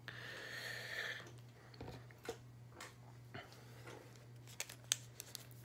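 Faint handling of chromium trading cards: a soft sliding rustle for about the first second, then a few light clicks and taps as the cards are set down.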